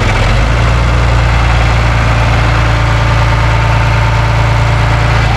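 John Deere 2840 tractor's diesel engine running steadily at idle.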